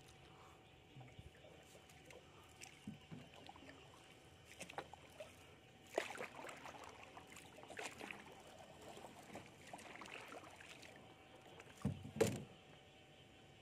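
Shallow canal water sloshing and splashing as an electrofishing pole and round dip net are worked through it, with sharper splashes about six seconds in and again near the end. A faint steady hum runs underneath.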